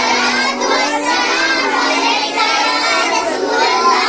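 Young boys' voices chanting a dua, the Islamic closing supplication, in a sing-song recitation with pitch rising and falling continuously.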